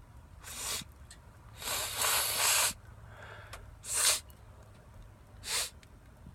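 A man's sneezing fit: a long, loud sneeze about two seconds in, set among three shorter, sharp sniffs or snorts through the nose.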